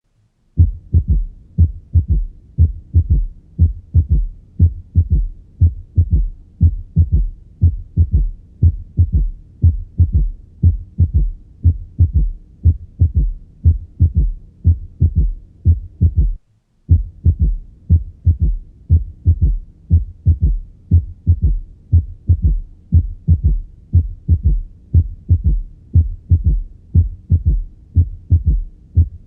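Heart sounds heard on auscultation with a third heart sound (S3): a steady, repeating rhythm of low thuds, with an extra soft sound after the first two in each beat. The recording drops out for a moment about sixteen seconds in, then carries on.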